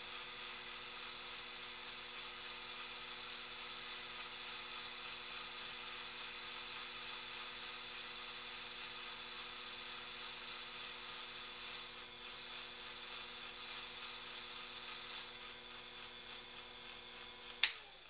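Small electric motor running with a steady hum and a high whine, switched off with a sharp click near the end, its pitch sliding down as it winds down.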